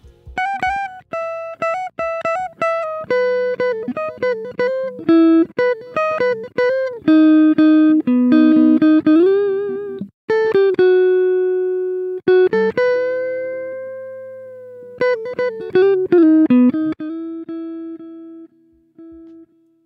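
Guitar solo playing on its own: a single line of plucked notes with bent notes and a long held note a little past halfway, run through a compressor that barely reduces it.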